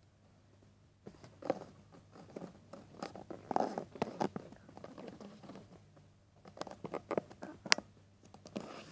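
Handling noise from a phone being moved around on a selfie stick: irregular rustles, scrapes and knocks against the microphone, with one sharp click near the end.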